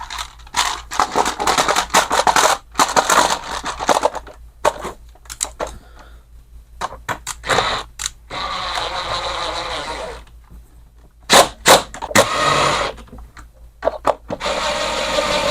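Chainsaw housing parts and fasteners being handled and fitted back together: irregular scraping, rubbing and clicking of plastic and metal, with a few longer rasping scrapes.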